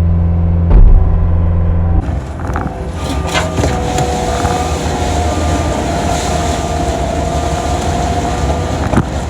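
Diesel engine of a Cat 259D compact track loader droning steadily, heard from inside the cab. About two seconds in, it gives way to an outdoor machine running, with wind noise on the microphone and a faint beep repeating at an even pace.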